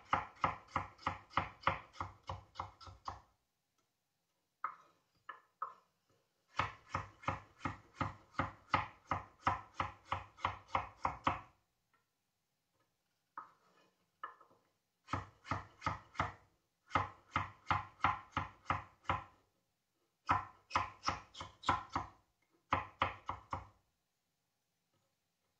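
Kitchen knife chopping kohlrabi into strips on a wooden cutting board: runs of quick, even strikes, about four a second, broken by short pauses.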